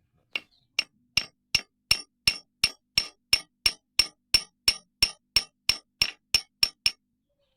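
Hammer tapping on a chainsaw chain rivet, metal on metal: about twenty even, ringing taps at roughly three a second, coming slightly faster toward the end.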